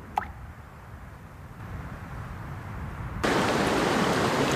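A short falling whistle near the start over a low rumble. About three seconds in, a loud, steady rush of falling water cuts in suddenly.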